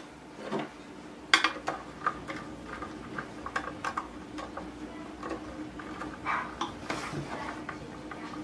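A small screwdriver turning screws and clinking against the metal case of an Optimus XL-200 car amplifier: scattered irregular clicks and metallic ticks, with one sharper knock about a second and a half in.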